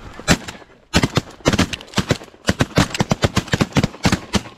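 A volley of shotgun fire from several hunters: one shot, then from about a second in many shots in quick, overlapping succession.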